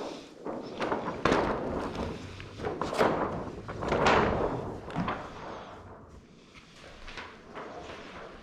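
Large sheet of window tint film rustling and crinkling in irregular bursts as it is rolled up by hand, the film clinging to itself from static. It goes quieter after about six seconds.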